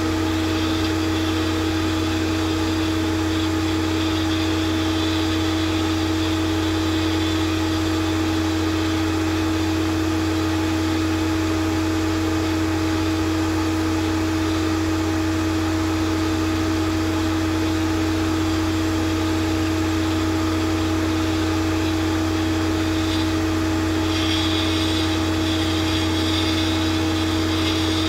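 Ice-drilling rig running steadily as its auger turns and bores down into the ice, a constant mechanical drone with a steady hum. A higher hiss joins in near the end.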